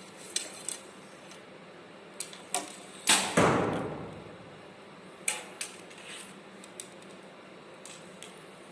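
An archer's bow shot about three seconds in: two sharp cracks about a third of a second apart, the second ringing on briefly, amid lighter clicks and taps before and after.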